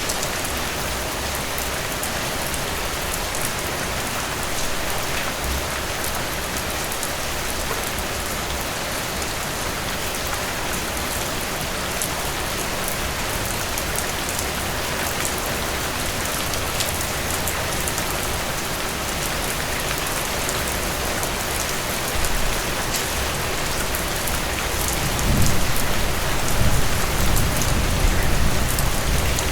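Steady rain falling on a surface, an even hiss with fine drop ticks. A low rumble swells over the last few seconds.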